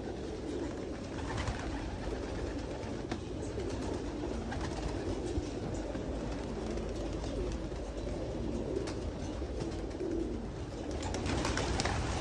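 A loft full of domestic racing pigeons cooing together, a steady low chorus of many birds, with scattered sharp clicks and a wing flap near the end.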